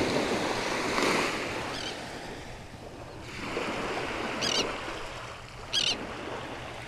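Gulf surf washing onto the beach, swelling and easing. Four short, high, wavering chirps sound over it.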